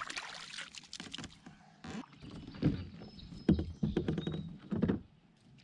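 Kayak paddle strokes: a series of low, splashy thumps about every second as the blades dip and pull through the water, after a run of light ticks at the start.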